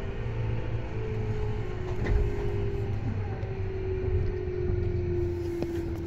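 Tobu 10030 series electric train running on the line: a steady rumble of wheels on rail with a motor and gear whine that slowly falls in pitch. There is a faint knock about two seconds in.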